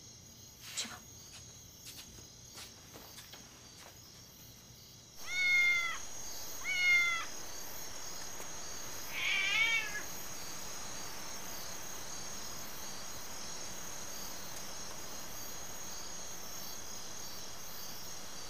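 A cat meowing three times, about five and a half, seven and nine and a half seconds in, the third meow wavering. Steady cricket chirring starts about five seconds in, and a few faint taps come before it.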